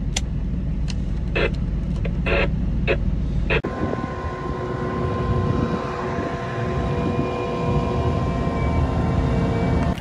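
Farm machinery engine running steadily, with a few short sounds over it at first. About a third of the way in the sound cuts abruptly to a different steady engine drone with a few steady whining tones.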